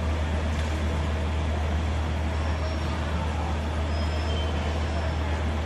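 Steady low rumble of an idling city bus, with street traffic noise.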